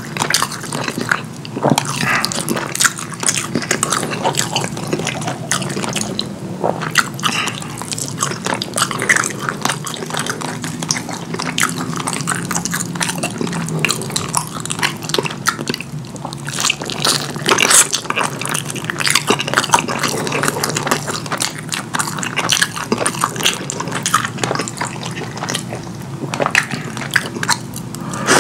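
Close-miked wet eating sounds: chewing, smacking and squelching of saucy curry food, a continuous run of small wet clicks and crackles.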